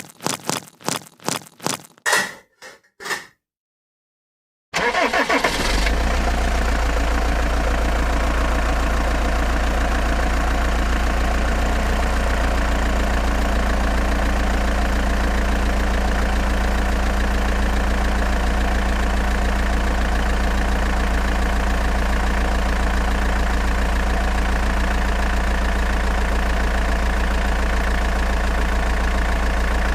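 An engine cranking in a quick run of chugs, broken off about three seconds in; after a short silence the engine runs steadily with a strong low hum.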